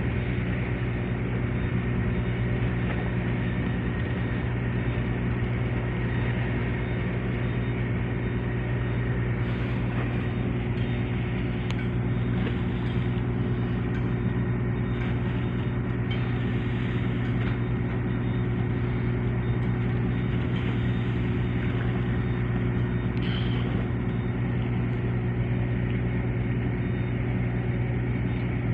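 A large engine running steadily: a constant, even low drone with a steady hum that does not change in pitch. A few faint ticks can be heard over it in the middle.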